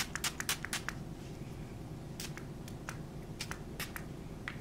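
Pixi Vitamin Wake Up Mist pump-spray bottle spritzed onto the face in short sprays: a quick run of them in the first second, then a few more spaced a second or so apart.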